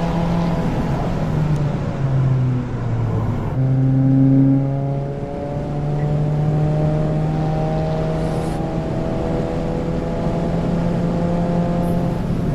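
Subaru WRX VB's turbocharged 2.4-litre flat-four pulling up through the revs at quarter throttle, running cleanly without misfiring. The pitch drops at a gear change about three and a half seconds in, then rises slowly and steadily.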